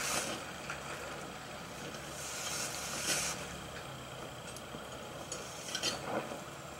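Gas brazing torch flame hissing steadily while a filler rod is melted into a steel lap joint, the hiss swelling briefly about two and a half seconds in and again near the end.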